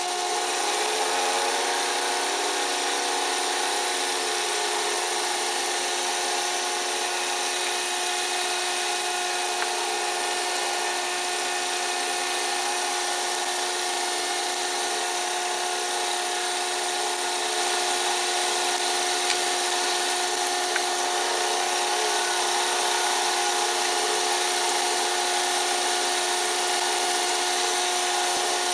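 Sherline mini milling machine running steadily with a steady whine as a 5/16-inch cobalt roughing end mill takes a full-depth cut, about 5/8 inch deep, in one pass through A2 tool steel. It gets a little louder past the middle.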